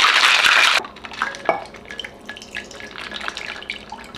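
Ice rattling hard in a stainless-steel cocktail shaker, stopping suddenly under a second in. Then scattered light clinks and ticks as the shaker is opened and the drink is poured into a glass.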